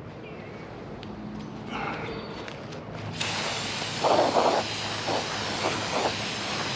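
Aerosol brake cleaner spraying in a long, steady hiss that starts about three seconds in, washing the protective grease coating off a new brake rotor.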